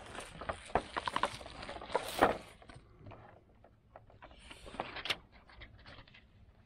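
Irregular clicks, rattles and knocks of a hand-held battery tester's cables and clamps being handled and hooked up, busiest in the first two seconds with one sharp loud clack about two seconds in, then fainter scattered clicks.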